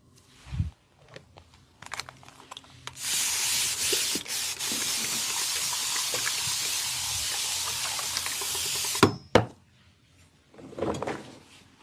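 A steady hissing spray that starts about three seconds in and runs for about six seconds, then stops, followed by two sharp clicks.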